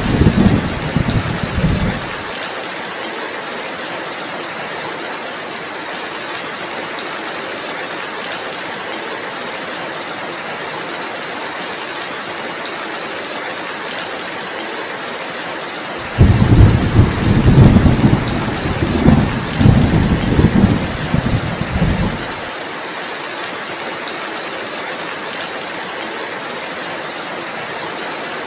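Steady heavy rain with rumbles of thunder. One rumble ends abruptly about two seconds in, and another rolls for about six seconds past the middle before cutting off.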